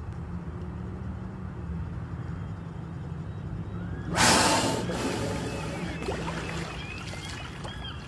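Gray whale exhaling through its blowhole as it surfaces about four seconds in: a loud, breathy whoosh lasting about half a second, then fading. A steady low hum runs underneath, and after the blow a quick run of short, high, rising-and-falling chirps repeats.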